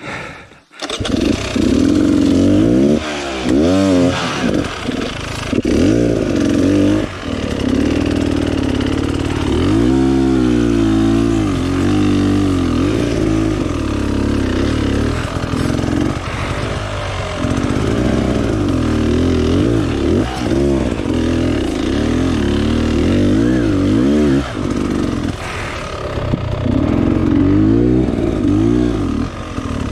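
Beta enduro dirt bike's engine starting about a second in, then revving up and down again and again as the bike is ridden.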